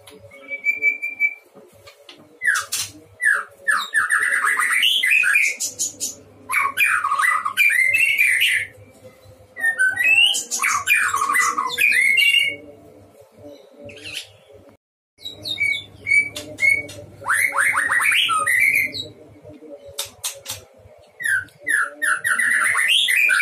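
White-rumped shama (murai batu) in full song: phrase after phrase of loud, varied whistled notes mixed with rapid rattling clicks, with short pauses between phrases. There is a brief dropout about two-thirds of the way through.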